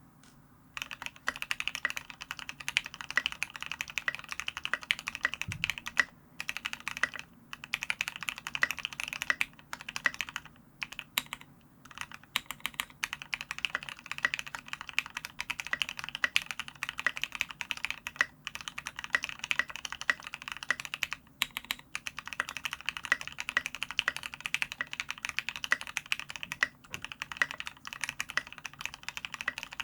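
Steady, fast typing on an F1-8X mechanical keyboard fitted with SA-profile Oblivion keycaps, over lubed and filmed Gateron Ink Black linear switches with 70 g springs and an aluminium plate. The typing starts about a second in and runs on in quick runs of keystrokes, with a few brief pauses.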